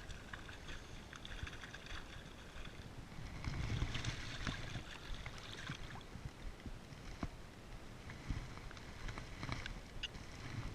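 Water lapping and wind, with scattered small clicks and knocks; the water and wind swell louder about four seconds in.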